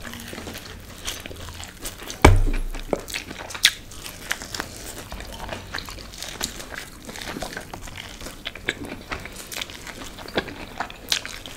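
Close-miked chewing and biting of food, with many small crunchy clicks throughout and a loud thump about two seconds in.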